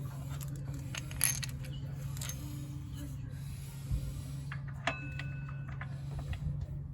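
Metal tools or parts clinking a few times, the last clink ringing briefly, over a steady low hum.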